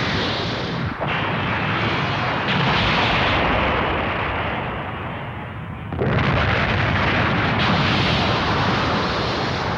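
Animated-film explosion sound effects: a run of heavy blasts with long rumbling. A fresh blast breaks in about a second in, again about two and a half seconds in, and once more about six seconds in after a short easing off.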